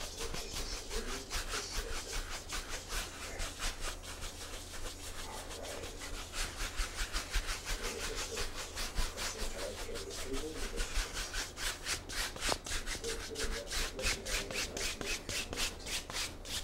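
A 2.5-inch bristle brush scrubbing back and forth across a canvas wet with oil paint, blending the color in quick repeated strokes. It makes a rhythmic rubbing at several strokes a second, faster toward the end.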